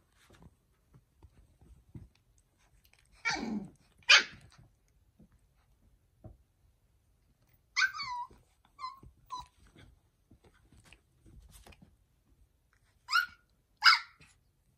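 Very young sighthound puppies yapping in short, high-pitched barks: two loud ones a few seconds in, a falling yip with two small ones after it midway, and two more near the end. These are puppies just starting to bark.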